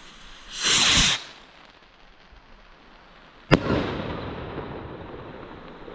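A firework rocket launching with a short, loud whoosh, then about three seconds later a single sharp bang as its shell bursts, the bang trailing off in a long echo.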